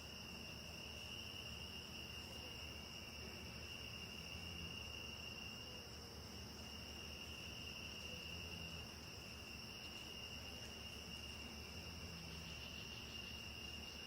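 Night chorus of crickets and katydids: a steady, unbroken high-pitched trill that holds on one pitch throughout, with a faint low rumble beneath.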